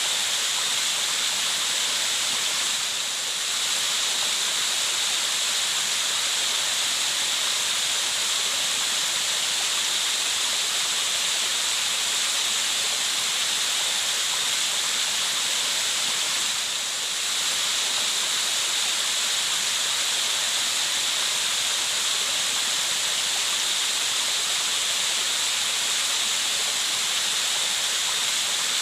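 Steady hissing white noise, strongest in the high treble and thin in the bass, dipping briefly in loudness twice.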